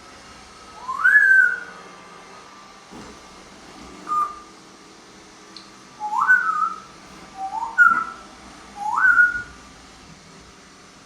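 Congo African grey parrot whistling: about five separate whistles, most of them quick upward swoops that level off on a held note, with one short flat whistle a few seconds in.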